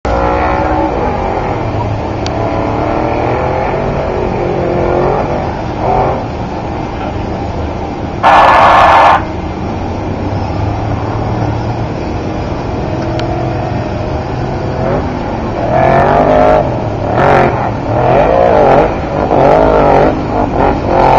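Trophy truck's race engine running hard, its pitch sliding up and down as the revs change. There is a very loud one-second blast about eight seconds in, and repeated quick rises and falls in revs over the last several seconds.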